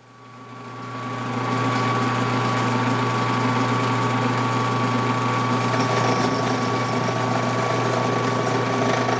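Ryobi benchtop drill press running steadily as its bit drills into a metal rod held in a vise: a constant motor hum with a steady whine above it. It fades up over the first second or so, then holds level.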